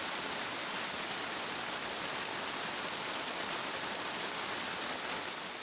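A steady, even hiss that drops away near the end.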